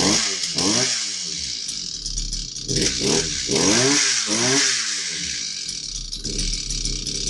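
Shark auger's small gas engine running and being revved in quick throttle blips, its pitch rising and falling several times, then holding steadier near the end. It has just been repaired and is running again.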